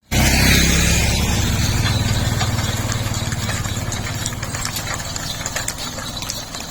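An engine idling: a steady low, fast-pulsing drone that starts abruptly and slowly fades.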